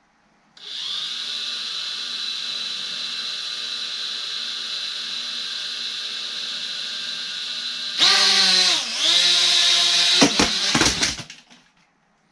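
Elfie mini folding quadcopter's tiny motors spin up to a steady high whine. About eight seconds in they rev louder, their pitch dips and comes back up, and a few sharp knocks follow before the motors cut off.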